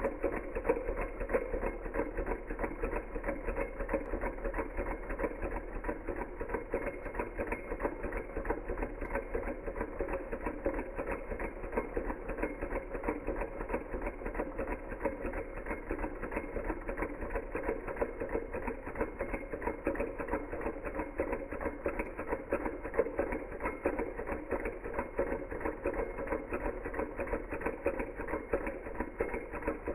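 Small Hog Motor Stirling engine running, with a fast, steady mechanical clatter that does not change.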